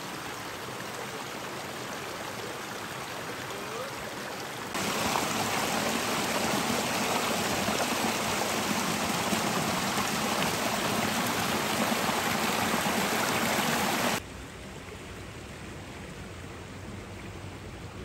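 Steady rushing of a stream. It jumps louder about five seconds in and drops back suddenly about fourteen seconds in.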